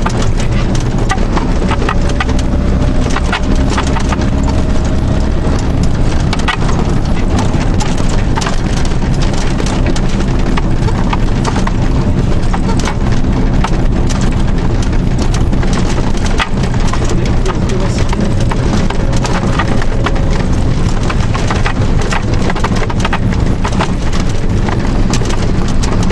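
Fire engine's diesel engine running steadily under way, heard inside the cab, with constant irregular rattling and knocking from the cab and its fittings.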